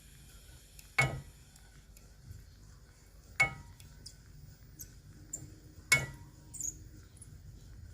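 A utensil stirring tangzhong (a thickening flour-and-milk paste) in a pot on low heat, knocking sharply against the pot three times, about every two and a half seconds.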